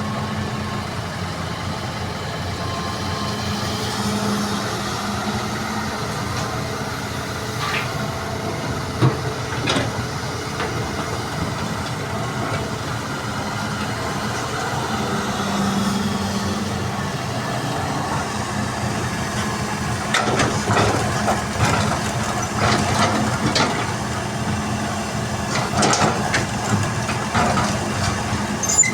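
Heavy diesel engine of construction machinery (excavator and dump truck) running steadily. There are a few sharp knocks, then a long stretch of clattering impacts starting about two-thirds of the way through.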